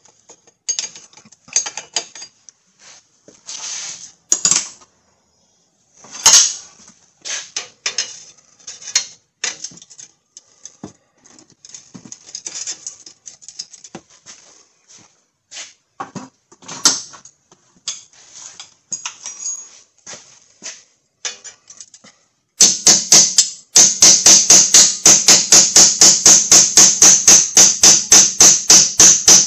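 Scattered clinks and knocks of hand tools working on metal, then from about 23 seconds in a fast, even run of loud hammer blows on steel, about four or five a second, with a ringing note under them.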